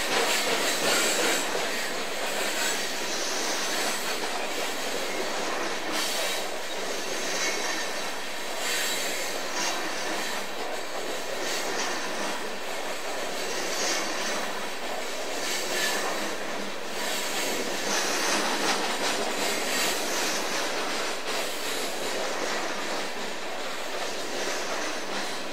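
Loaded steel coal cars of a long freight train rolling past: a steady clatter of wheels on rail, with wheel squeal and scattered clicks as the wheels cross rail joints.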